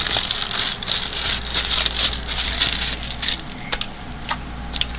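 Sticky slime being handled and worked by hand, a dense wet crackling and popping that thins out after about three seconds, with a few sharp clicks near the end.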